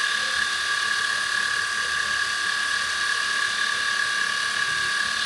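Sieg X1 micromill engraving 6061 aluminum with a 90-degree V-bit at 2500 rpm. The machine gives a steady whine over a continuous hiss of the bit cutting, with no change in level.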